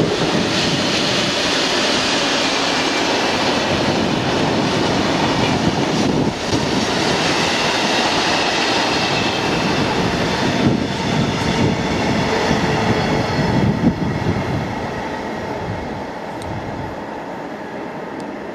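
Class 60 diesel-hauled freight train of covered steel-coil wagons rolling past: a steady rumble and clatter of wagon wheels on the rails with a faint wheel squeal, fading as the end of the train passes near the end.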